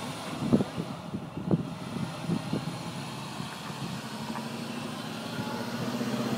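A car's engine on the highway, growing steadily louder from about four seconds in as it approaches. Before that come a few irregular low thumps.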